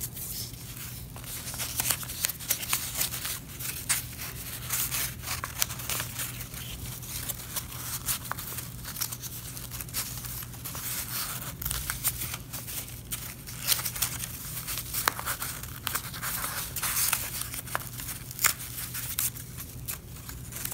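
Construction paper rustling and crinkling as a paper strip is pushed and slid over and under the strips of a paper weaving loom: a run of irregular scratchy rustles and small crackles.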